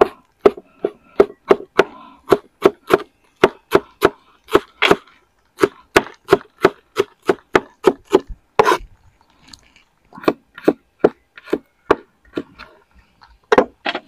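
Broad cleaver-style knife chopping garlic and coriander root on a wooden cutting board: a steady run of sharp knocks, about three a second, with a short pause about two-thirds of the way through before the chopping resumes more sparsely.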